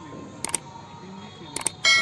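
Subscribe-button animation sound effect. Two quick double mouse clicks, then a bright bell ding that starts near the end and keeps ringing.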